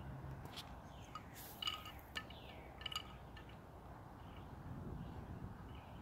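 Wind blowing through leafy trees ahead of a thunderstorm, a steady rushing noise. Between about half a second and three seconds in come a few short, bright ringing clinks at the same pitches each time.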